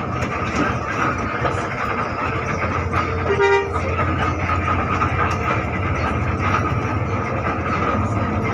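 Steady engine and road noise in the cabin of a moving intercity bus. About three seconds in, a horn sounds one short toot.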